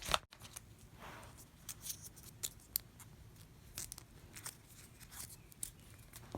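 Scattered light clicks and brief soft rustles as a new iPhone 12 and its box and packaging are handled during unboxing.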